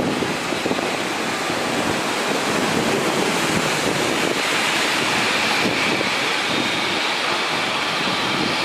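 Steady rush of strong wind and heavy rain, with wind buffeting the microphone. A faint high whine, most likely the engines of the taxiing Boeing 787-10, comes in about halfway through.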